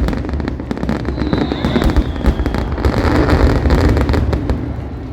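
Fireworks display: a dense run of crackles and bangs from aerial shells over a low rumble, with a faint whistle falling slightly in pitch about a second in.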